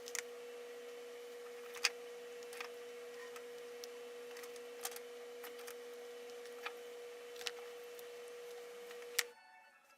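A steady mid-pitched hum with a fainter lower tone under it, broken by a handful of sharp, irregular clicks and taps. The hum cuts off suddenly near the end.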